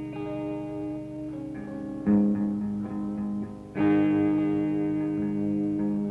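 Soundtrack music on plucked guitar: ringing notes and chords, with a loud chord struck about two seconds in and another just before four seconds.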